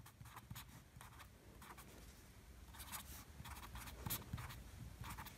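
Felt-tip sketch pen writing numbers on paper: faint, short scratching strokes in several small bursts.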